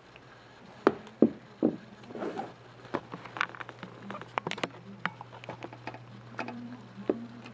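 Kittens eating and pawing at a plastic food tray: irregular small clicks, taps and scrapes, with three louder knocks in the first two seconds. A steady low hum runs underneath.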